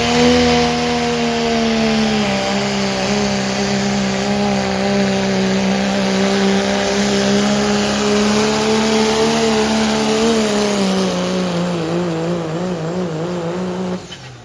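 Pro Street class diesel pulling truck's engine at full throttle as it pulls a sled, a steady high engine note over heavy turbo and exhaust noise. The pitch dips slightly about two seconds in, wavers and sags over the last few seconds, then cuts off suddenly near the end.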